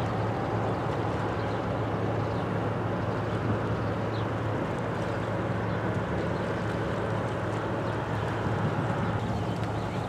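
Steady low engine drone from a passing container ship and its assisting tugboat, heard over a constant hiss.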